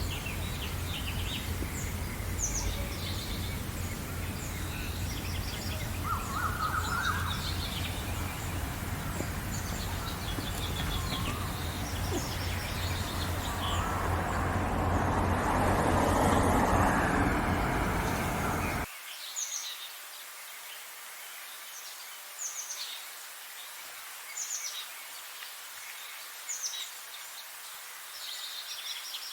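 Small birds chirping and singing in short, high repeated phrases over a steady background rush with a low hum. A louder rush swells in the middle, then the background drops away suddenly two-thirds of the way through, leaving the chirps over a much quieter bed.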